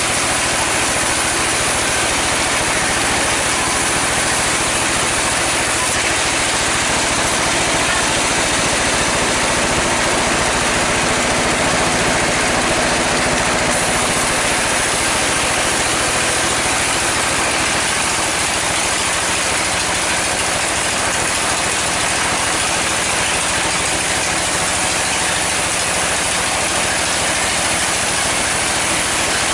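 Sawmill saw running steadily as mahogany logs are pushed through it by hand, a loud unbroken mechanical noise.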